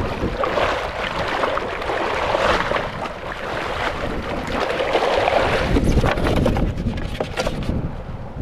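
Small waves washing and splashing against the stones of a seawall, surging and easing, with wind buffeting the microphone.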